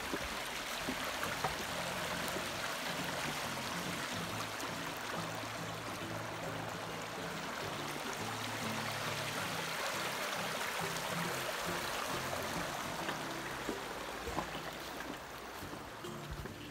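Shallow creek water running and rippling over stones, a steady rushing that eases a little near the end. Quiet background music with low held notes runs underneath.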